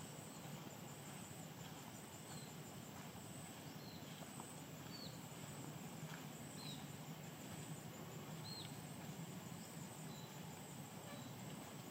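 Faint outdoor ambience: a steady high-pitched insect drone, with a short bird chirp about once a second.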